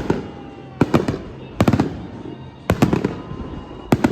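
Aerial fireworks shells bursting in quick clusters of two or three sharp bangs, about once a second, each followed by a short echoing tail.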